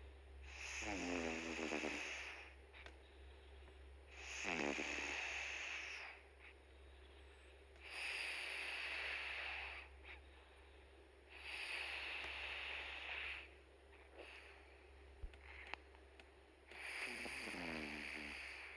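Domestic cat snoring in its sleep: five slow breaths, one every three and a half to four seconds, some carrying a low buzzing snore that falls in pitch.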